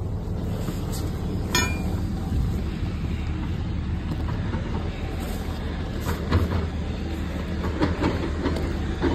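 Compact excavator's diesel engine running steadily, a low rumble, with a few sharp clanks and knocks scattered through it.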